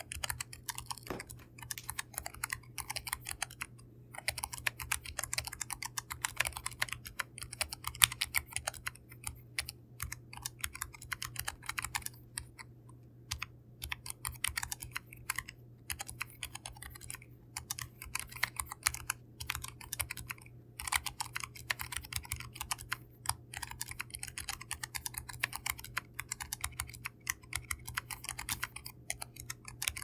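Steady fast typing on a Keychron K3 75% low-profile keyboard fitted with Keychron low-profile optical brown tactile switches, its case modded with tape and foam: a dense stream of key clicks, broken by a few short pauses.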